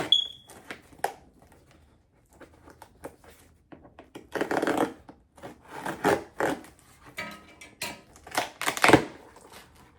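Plastic packaging crinkling and rustling in irregular bursts as a parcel is opened by hand, loudest near the end.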